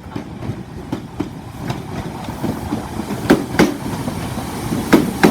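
British Rail Class 313 electric multiple unit running into the platform, its wheels clicking over the track joints in close pairs. The rumble and clicks grow louder as it nears.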